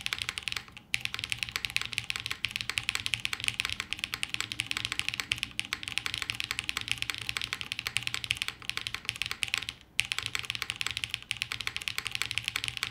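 Fast typing on a Martingale custom mechanical keyboard, a top-mount, plateless build with Gateron Summertime linear switches and GMK keycaps. A dense, steady run of keystroke clacks with a little resonance, paused briefly about a second in and again later on.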